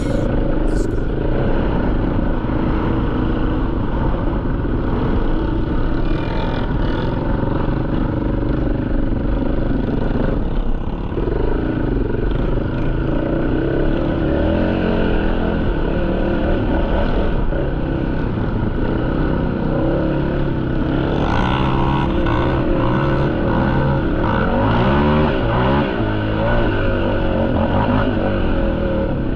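Sport ATV engine running under throttle on a dirt trail, its pitch rising and falling as the throttle is worked, with quicker rises and falls in revs over the last several seconds.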